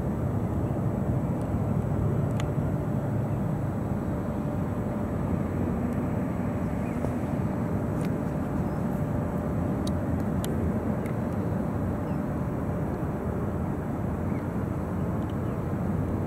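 Jet airliner engines running at a distance: a steady low rumble with a faint steady whine over it, and a few faint ticks.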